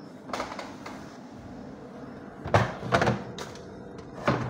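Lid of a kitchen trash bin being opened and let fall shut, with several sharp knocks and clatters: one soon after the start, a cluster in the middle, and a loud one near the end.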